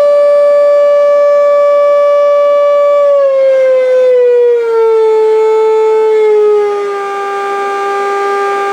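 Freewing Stinger 64 RC jet's stock 64 mm electric ducted fan, driven by its 4300 kV motor on a 3-cell battery, running with a loud, steady high whine. From about three seconds in the whine steps down in pitch as the throttle is eased back.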